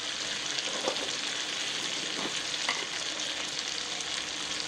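Oil and butter sizzling steadily in a kadhai over a low flame, with ground spices and red chilli powder frying in it; a few small pops stand out.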